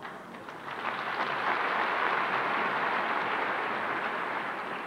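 Large stadium crowd applauding and cheering, building up about a second in and slowly dying away near the end.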